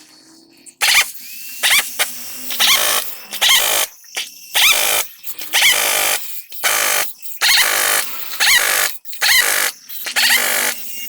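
Power tool run in about a dozen short bursts, roughly one a second, each with a high squeal.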